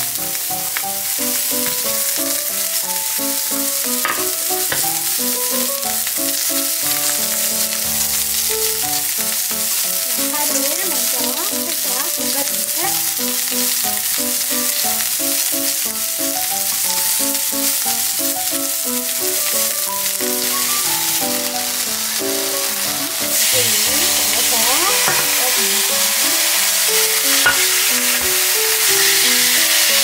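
Sliced onions sizzling in hot oil in a stainless steel frying pan, stirred with wooden chopsticks. About three-quarters of the way through the sizzle steps up louder as marinated sliced beef goes into the pan.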